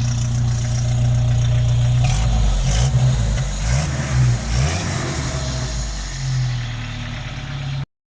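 1994 Jeep YJ engine running through its newly fitted Walker muffler, idling steadily and then blipped several times from about two seconds in. The sound cuts off abruptly near the end.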